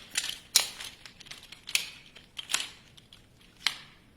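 Bungee-corded camping chair frame poles snapping into their joints during assembly: four sharp clicks about a second apart, with lighter knocks between.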